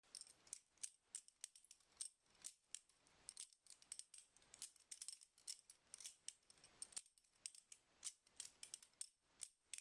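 A balisong (butterfly knife) being twirled, its handles and blade clicking against each other in quick, irregular, sharp clicks, several a second.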